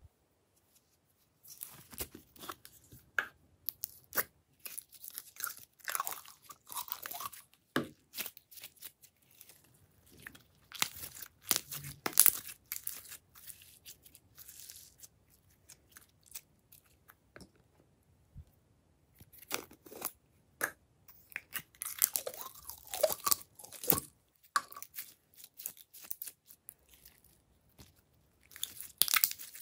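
Glossy slime squeezed and stretched by hand, giving clusters of sticky, wet clicks and pops, with a quieter spell of a few seconds in the middle.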